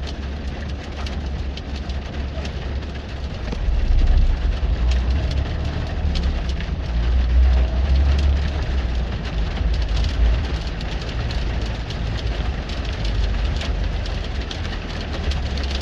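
Hail striking a semi truck's hood and cab in many irregular sharp clicks and taps, over the steady low rumble of the truck's idling diesel engine.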